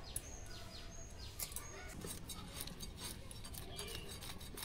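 Scales being scraped off a small bata fish against the blade of a boti, the upright curved blade of a Bengali floor cutter: a quick, irregular run of light scratchy clicks.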